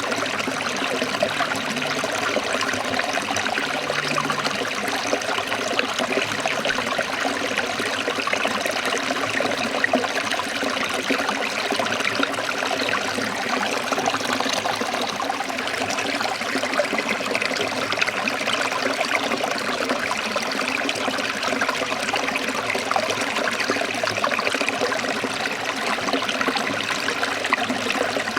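Shallow stream of water trickling and burbling over rocks, a steady splashing that doesn't let up.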